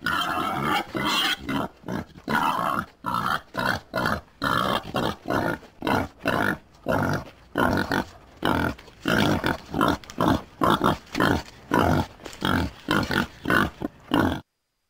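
Wild boar grunting in a rapid series, about two to three grunts a second, cutting off suddenly near the end.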